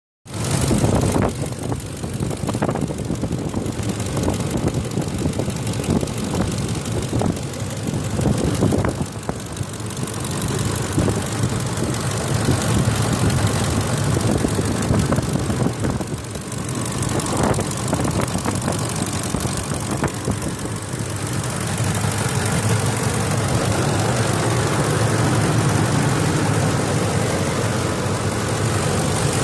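2004 Ford F-150's 5.4L V8 engine running steadily with a ticking noise, which the owner says seems common with this engine. The tick remains after new VCT solenoids cured a dieseling sound.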